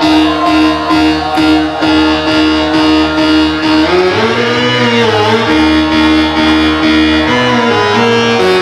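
Loud live electro dance music: a synth lead played on a keytar over a steady kick drum. About four seconds in, the kick drops out while the lead bends up and back down in pitch, and the beat comes back about a second and a half later.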